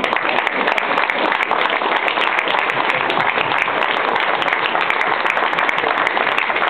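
Crowd applauding, a steady dense clapping.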